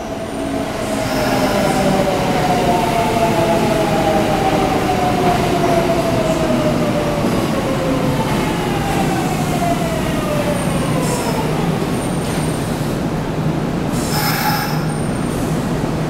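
Kintetsu electric train at an underground platform, running with a steady rumble while its motor whine falls slowly in pitch as it slows, with wheel squeal. A short hiss near the end.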